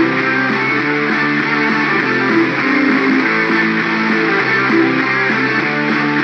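Background music: a guitar-led instrumental with a steady beat and level.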